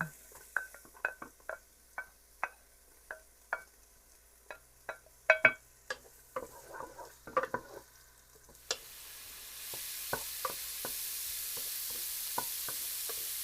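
Light clicks and knocks of kitchen utensils against a pan, then from about nine seconds in a steady sizzle of onions and garlic frying in hot oil.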